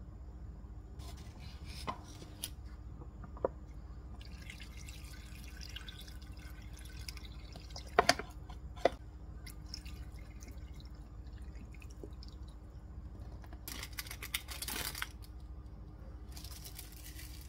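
Cooking ingredients going into a pot: a few sharp knocks and clicks, the loudest about eight seconds in, and splashing as broth is poured from a pouch over the ingredients.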